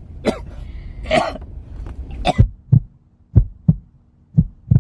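A man coughing repeatedly in short, single coughs, bunched more tightly in the second half. The cough is put on: a faked fit of coughing staged for a prank.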